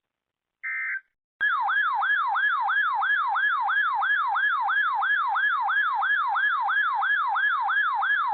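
Electronic weather-alert alarm signalling an incoming warning. A short burst of electronic data tones comes first, then a loud siren-like tone that sweeps down in pitch over and over, about three times a second.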